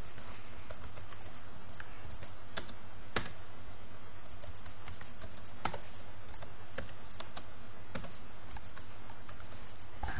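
Typing on a computer keyboard: a quick, irregular run of key clicks, a few struck harder than the rest, over a steady low hum.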